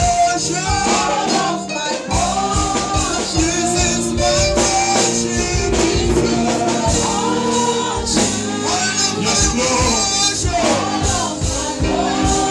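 Gospel praise music: voices singing over a live church band with keyboard and drums, keeping a steady beat.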